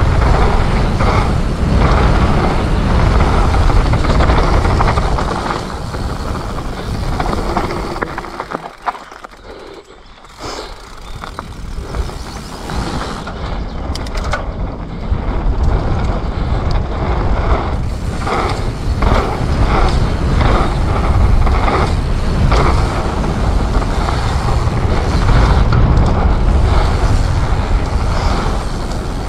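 Commencal Supreme DH29 downhill mountain bike being ridden fast down a trail: rushing wind on the microphone and rumbling tyres, with sharp rattling knocks from the bike over bumps. The noise drops away for about two seconds around nine seconds in, and a run of rattling knocks comes about eighteen to twenty-two seconds in.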